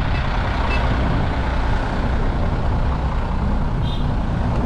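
Heavy truck or road machinery engine running steadily with a loud low rumble, and a short high beep about four seconds in.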